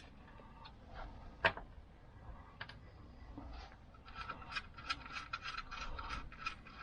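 Small metal engine parts clicking and clinking as they are handled on a Lambretta scooter engine: one sharp click about a second and a half in, then a quick run of clicks over the last few seconds.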